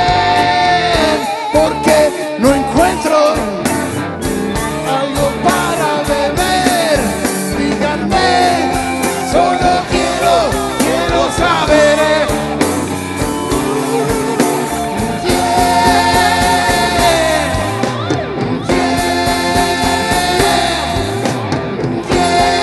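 Live rock band playing: a man sings lead in long, wavering held notes over electric bass, electric guitar and drums.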